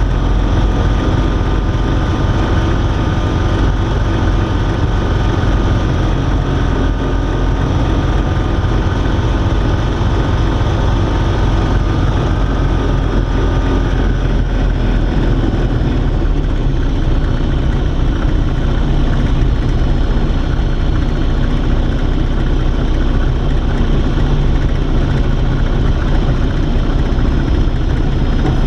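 Steady low rumble and hiss heard in the cockpit of an Alisport Silent-in motorglider as it moves along paved tarmac after landing.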